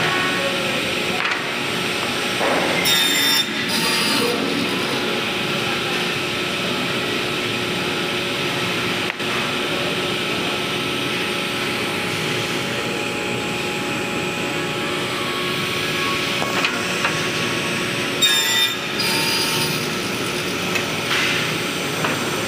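Sliding table panel saw (a 315 Elite S) running steadily, with a constant whir and hum from its spinning circular blade. Short louder bursts come a few seconds in and again near the end as the blade cuts through particleboard strips.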